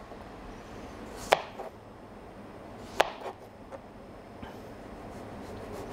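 Kitchen knife cutting through a lime and striking a plastic cutting board: two sharp knocks, about a second and a half apart, each with a lighter tap or two after it.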